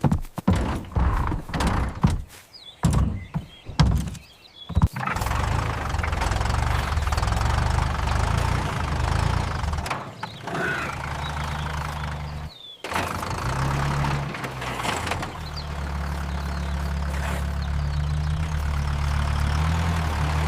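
A run of sharp knocks for about five seconds, then a steady low engine-like rumble that dips briefly twice.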